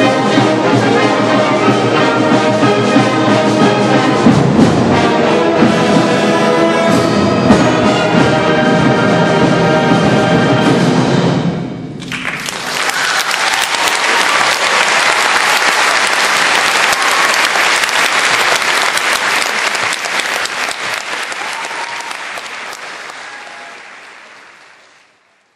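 A school concert band of brass and woodwinds plays the last bars of a piece, the final chord cutting off about eleven seconds in. An audience then applauds, the clapping fading away near the end.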